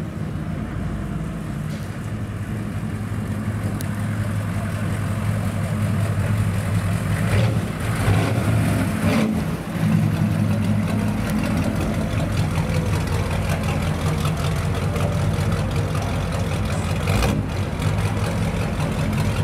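Custom pickup truck's engine running steadily at low speed through its upright exhaust stacks as it drives slowly past, getting louder as it comes close about eight to ten seconds in.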